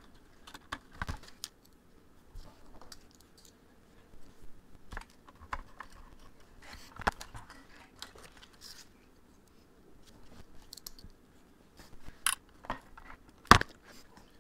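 Hands working on a combine headlight assembly at a workbench, fitting LED bulbs into their sockets: scattered light clicks, taps and rustles of plastic and metal parts, with a sharper click about a second before the end.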